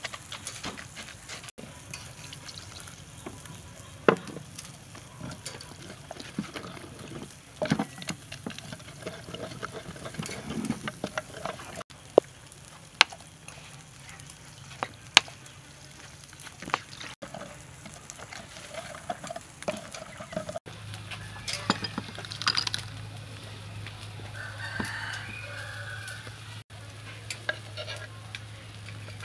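Wooden pestle and metal spoon working chili dipping sauce in a wooden mortar: scraping and stirring with a few sharp knocks against the mortar, and liquid poured in from a bottle. A rooster crows in the background.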